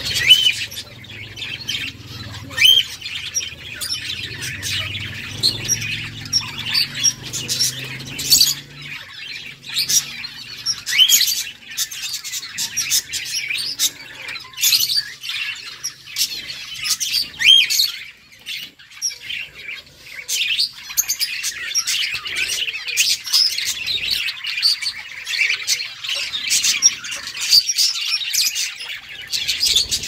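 A flock of budgerigars chattering and warbling without pause, a dense stream of quick chirps with short rising whistled notes mixed in.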